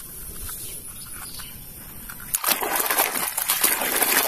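Water splashing and sloshing as hands swish a toy vehicle through it to wash off mud, starting suddenly about halfway through after a quieter stretch.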